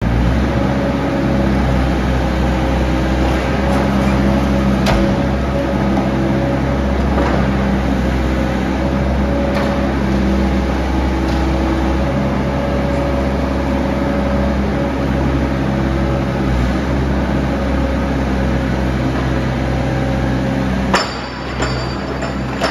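Diesel engine of a 2011 Hyundai 60-7 midi excavator running steadily, with a few light clicks. Near the end there is a sharp knock, after which it runs a little quieter.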